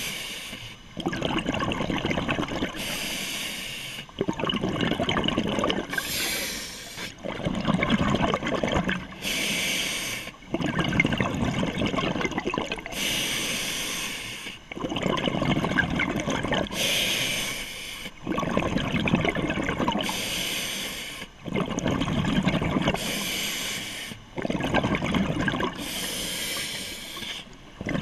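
Scuba diver breathing through a regulator underwater: a short hissing inhale, then a longer rumble of exhaled bubbles, repeating about every three seconds, some nine breaths in all.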